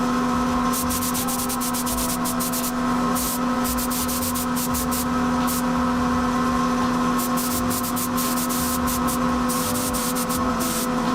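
Primer being sprayed onto a Yamaha DT125 motorcycle frame in repeated bursts of hiss, each lasting a second or so, over a steady machine hum.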